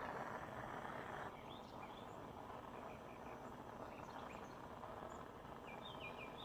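Faint hiss of a small soldering torch flame heating silver, dropping lower about a second in, with birds chirping through open windows.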